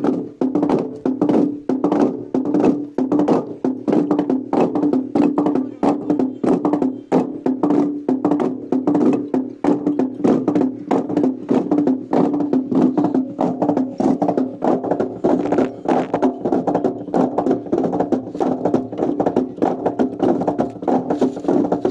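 A wooden log drum being beaten in a rapid, even rhythm, about three strikes a second, each stroke ringing at the same steady pitch.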